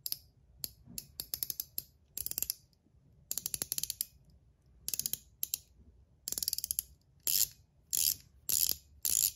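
Gao Studios Chiz mechanical fidget ring of PEI and stainless steel being turned by hand: rapid ratcheting clicks as its spring-loaded balls ride over a dense detent track. The clicks come in short bursts of a few to about a dozen, with brief pauses between.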